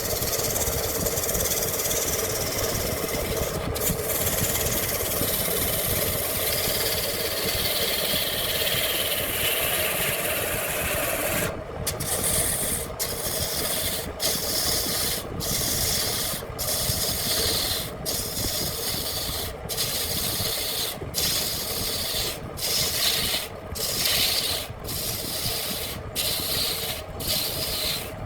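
Handmade wood lathe running with a tool rubbing against the spinning wooden workpiece, a steady scraping over the motor's hum. From about halfway on, the scraping breaks off briefly about every second and a half, in regular strokes.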